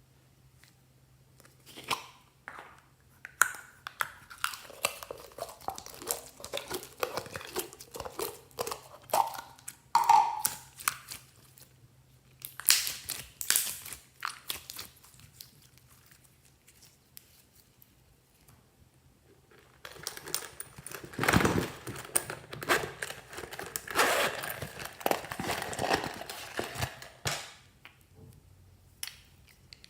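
Hands squeezing, poking and stretching slime: rapid sticky crackling and popping clicks. It starts about two seconds in and runs to about 11 s, comes back in a short burst around 13 s, then after a few quiet seconds returns louder from about 20 s to 27 s.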